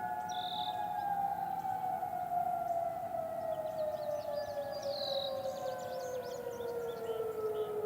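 Federal Signal Modulator 6024B electronic outdoor warning siren sounding its alert tone as it winds down, the pitch falling slowly and steadily.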